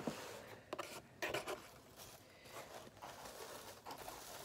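A hand rummaging through crinkle-cut paper shred filler in a cardboard box: faint rustling and crinkling, with a few louder rustles in the first second and a half.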